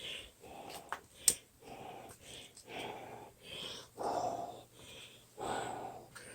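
A person breathing quickly and heavily close to the microphone, short wheezy breaths in and out about every half second. Two sharp clicks come about a second in.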